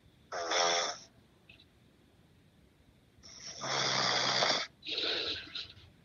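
A sleeping man snoring: a short snore about half a second in, then a longer one from about three seconds in, followed straight away by a shorter third just before the end.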